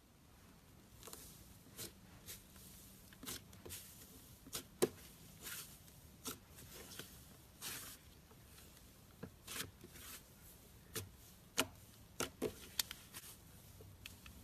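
Hands playing with slime: irregular soft squishes and sharp sticky clicks and pops, coming more closely together in the second half.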